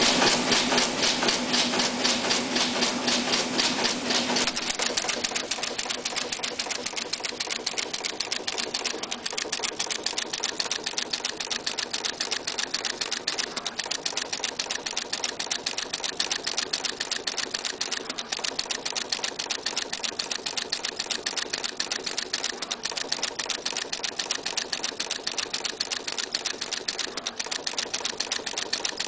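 Universal Instruments 6241B axial sequencer-inserter running, a fast steady rhythm of mechanical clacks as it inserts axial-lead components into a circuit board. For the first four or so seconds it is louder, with a steady hum under the clacking.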